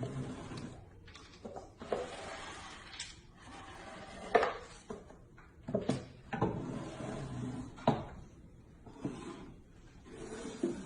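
Irregular wooden knocks and clunks with rasping, scraping noise in between: wood being handled and worked.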